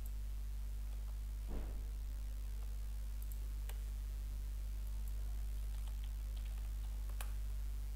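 Steady electrical hum with a few faint, scattered clicks from a computer mouse and keyboard.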